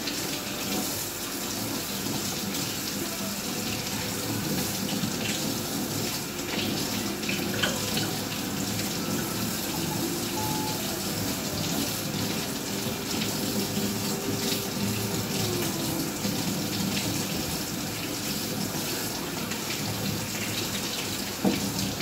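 Pull-down kitchen faucet running steadily into the sink, the stream splashing over hands and button mushrooms being rinsed under it.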